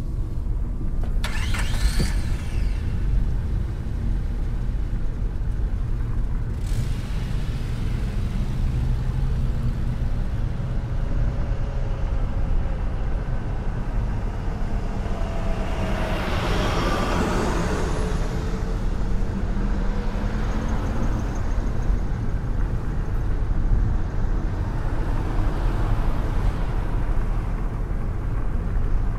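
Heavy tunnelling machinery running: a steady low rumble, with a brief rising whine about two seconds in and a louder hissing, whining burst about halfway through.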